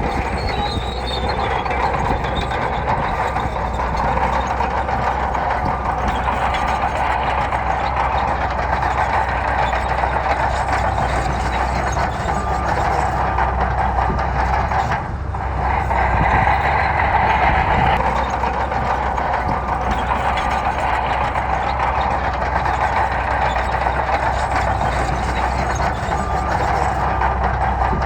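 Heavy bulldozer's diesel engine running steadily at work, with a brief dip in level about halfway through.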